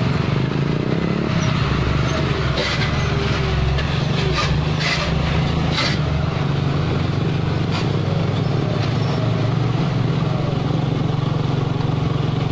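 Mitsubishi Fuso truck's 220 PS diesel engine running steadily as the truck moves slowly past, loaded with an excavator. A few short rattling clicks come between about two and six seconds in, and once more near eight seconds.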